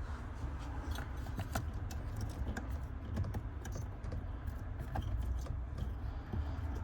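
Scattered light clicks and ticks from a plastic brake light switch being handled and turned to seat it in its mount, over a low steady rumble.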